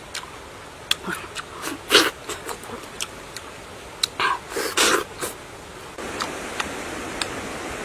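Close-up eating sounds of a ripe white-fleshed dragon fruit being bitten and chewed: wet lip smacks and clicks, with two loud breathy slurps about 2 s and 5 s in.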